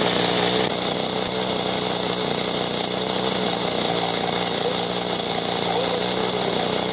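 Corded electric chainsaw running steadily, its bar held upright and cutting down through thick ice.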